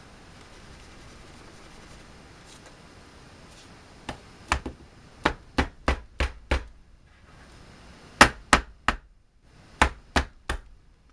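Rubber mallet tapping a tight ring (barrel band) along a rifle's stock to drive it off: two runs of sharp knocks, about seven each, with a short pause between them.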